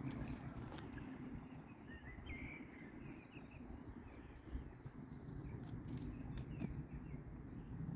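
Wind buffeting the microphone as a steady low rumble, with a few short bird chirps about two seconds in and a few faint clicks.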